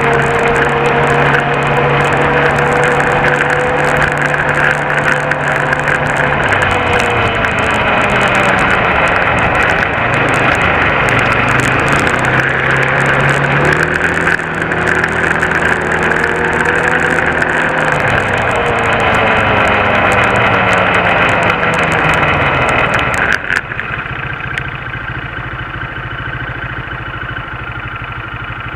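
Car engine and road noise while driving, the engine note falling and rising again as the speed changes. About 23 seconds in the noise drops abruptly to a quieter, steady engine running as the car comes to a stop.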